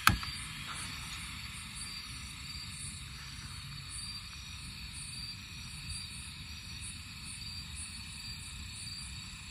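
A single sharp click at the very start, then a steady low hiss under faint, high, repeating chirps of crickets at night.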